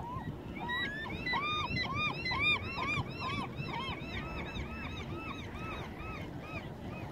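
A gull giving a long series of rising-and-falling yelping calls, about three a second, that fade toward the end, over a steady low background rumble.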